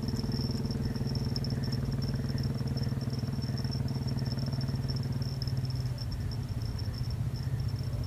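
An engine idling steadily, its low hum dropping away about six seconds in, with a thin, steady high-pitched whine running alongside.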